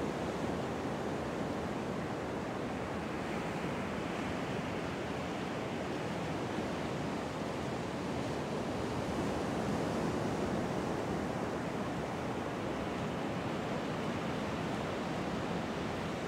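Pacific Ocean surf breaking on a sand-and-pebble beach, a steady wash of waves.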